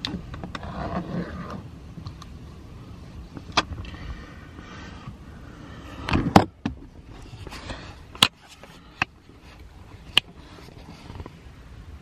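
Hands working carbon fiber trim onto a car's interior door panel: rubbing and pressing noises broken by about five sharp clicks or taps, the loudest a little past the middle.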